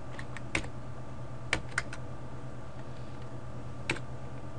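About six sharp clicks of computer keys and a mouse, scattered and irregular, over a steady low hum.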